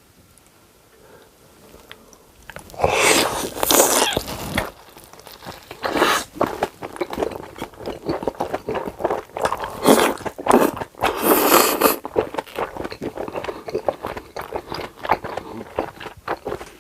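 Crunchy food bitten and chewed close to the microphone: after a quiet start, a loud crunching bite about three seconds in, then steady crunching and chewing with many short crackles.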